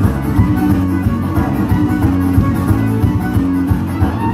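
Live folk-rock band playing an instrumental passage: bowed fiddle over a strummed acoustic guitar, with a steady beat.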